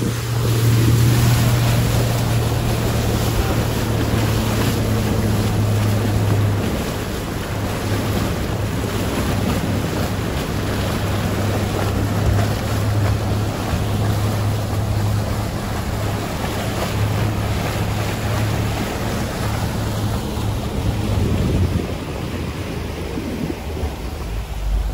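Evinrude outboard motor running steadily as a small boat motors along, with water rushing past the hull and wind buffeting the microphone.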